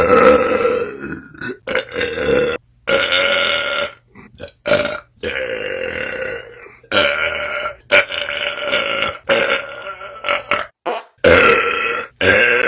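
A string of long, loud belches, one after another, each held on a fairly steady pitch and cut off abruptly before the next begins.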